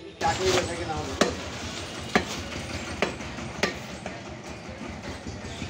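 Cleaver chopping goat meat on a wooden log chopping block: a series of sharp chops, roughly one a second.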